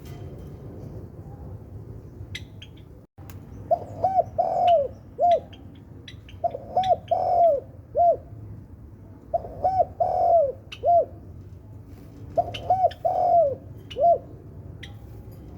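Spotted dove cooing: four repeated phrases, each a few short arched coos around one longer, drawn-out note, coming about every three seconds. Faint high chirps are scattered throughout.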